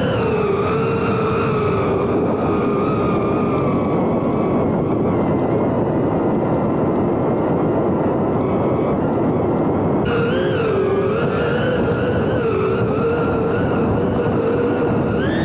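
FPV drone's motors and propellers whining steadily, the pitch sliding up and down with the throttle, faster and more often from about ten seconds in.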